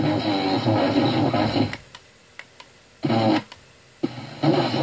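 Audio output of a Sony ST-157 FM tuner as its tuning button is stepped up from 87.50 MHz: a loud warbling sound that cuts out about two seconds in, a short blip of it about three seconds in, then the sound returning near the end, with faint clicks in the gaps.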